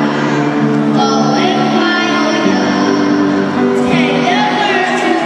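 A children's choir sings a Christmas carol with piano accompaniment.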